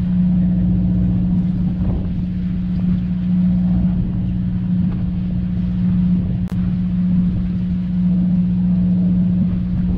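Fishing boat's onboard machinery running with a steady low drone, with a single sharp click about six and a half seconds in.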